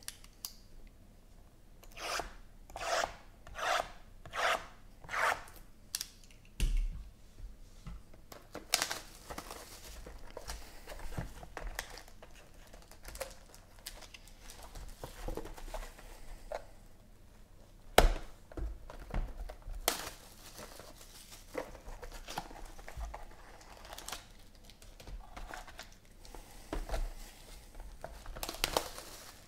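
Hands tearing open sealed Panini XR trading card boxes and their foil packs: six quick ripping strokes early on, then crinkling foil and cardboard being handled, with one sharp snap about 18 seconds in.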